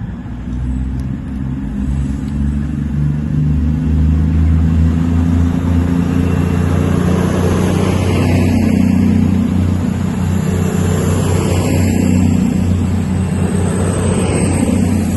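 A train running close past, with a steady low drone under broad running noise. It builds over the first few seconds, then holds loud.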